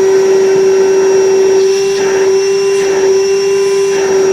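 Milwaukee M18 cordless toolbox wet/dry vacuum running flat out, a steady motor tone over the rush of air, pretty darn loud.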